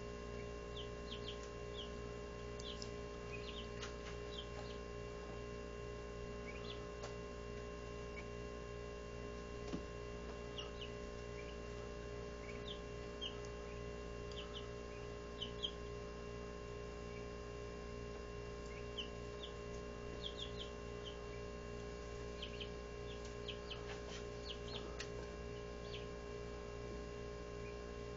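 Barred Rock chicks, about two and a half weeks old, peeping in short high chirps scattered throughout, over a steady hum. A couple of sharp taps come about ten and fifteen seconds in.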